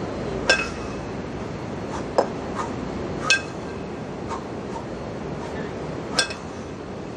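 A pair of 20 kg kettlebells clinking and ringing against each other during double kettlebell lifts. There are three sharp ringing clinks about three seconds apart, with softer knocks between them, over a steady background hum.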